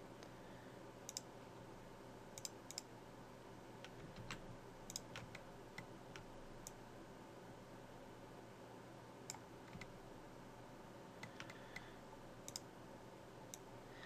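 Faint, scattered clicks of a computer mouse and keyboard, about a dozen at irregular intervals, over a low steady hum of microphone noise.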